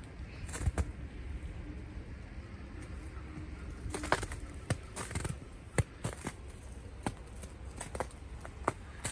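Irregular crunching footsteps breaking through a crust of icy snow, with a quick cluster of crunches about four seconds in and single sharp crunches after it.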